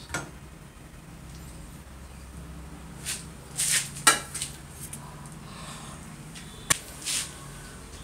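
Steel parts of an old Royal typewriter clinking and scraping as they are handled during disassembly. A long metal rod is worked out of the frame. There are a few short scrapes and sharp metallic clicks, the loudest about four seconds in and another near the end.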